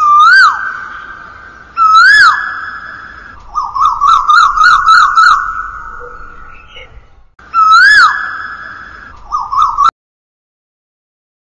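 Asian koel calling: single loud whistled notes that rise and then fall, a faster run of about four notes a second in the middle, and a last short run before the call cuts off suddenly near the end.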